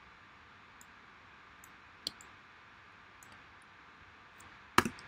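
Two clicks from a computer's input devices being worked at a desk, over faint room hiss: a light one about two seconds in and a sharp, much louder one near the end.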